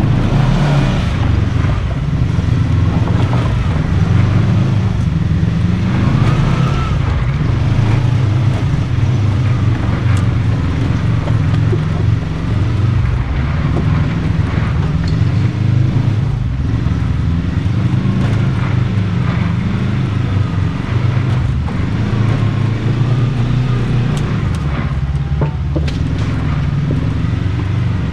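Side-by-side UTV engine running with a steady low drone, with a few faint knocks mixed in.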